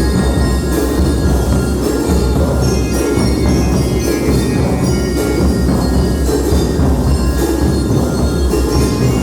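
Honduran banda de guerra marching band playing: drums beating a steady march with bell lyres ringing out the melody.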